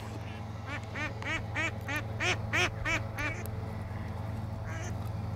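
A duck quacking: a run of about nine quacks, roughly three a second, that fades out about a third of the way in. A steady low hum sits underneath.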